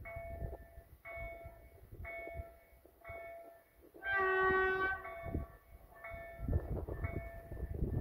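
An ET22 electric locomotive's horn sounds once, held for about a second midway, over a short warning-signal tone that rings about once a second.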